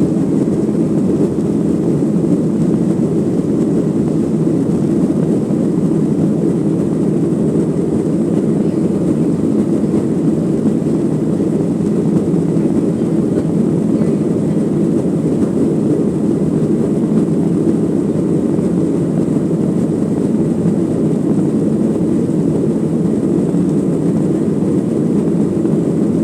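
Steady low rumble of a Boeing 737-900ER's two CFM56-7BE turbofan engines and the airflow around it, heard inside the passenger cabin from a rear seat. The level does not change.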